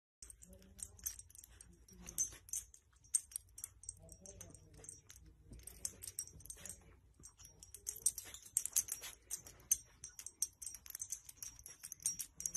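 A dog nosing and tugging a soft blanket: fabric rustling with a steady run of light, crisp clicks and crinkles, busiest about eight to nine seconds in.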